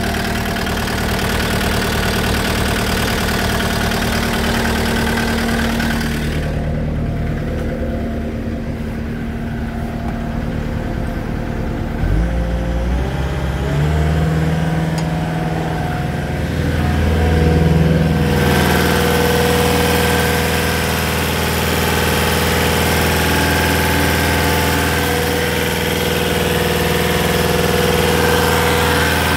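Caterpillar 246D skid steer's diesel engine running at idle. About twelve seconds in it is throttled up, its note climbing in steps, and from about eighteen seconds it holds steady at the higher speed.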